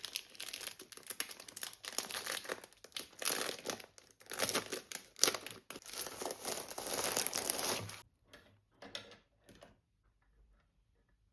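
Crinkling and rustling of something crinkly being handled, in dense irregular bursts for about eight seconds, then only a few faint ticks.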